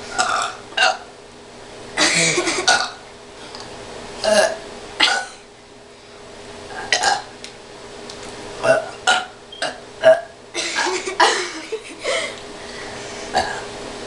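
Several people burping at once after chugging carbonated soda: a run of a dozen or more burps, some short and some drawn out, the loudest about ten seconds in.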